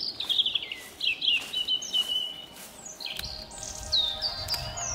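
Wild songbirds singing: several quick phrases of falling chirps and trills. Music begins to come in near the end.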